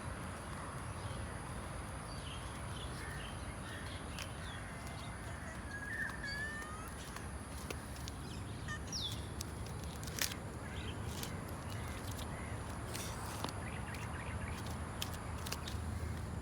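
Outdoor ambience: a steady high-pitched hiss and low hum, with a few birds calling and several short, sharp clicks scattered through it, the loudest about ten seconds in.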